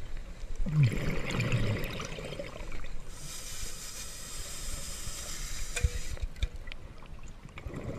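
Scuba diver breathing underwater through a regulator: a burble of exhaled bubbles about a second in, then a steady hiss of inhaled gas for about three seconds, and bubbles again near the end.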